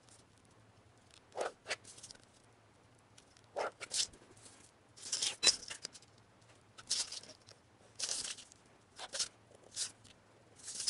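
Pen drawing lines on a sheet of paper along a metal ruler: about ten short scratching strokes with brief pauses between them.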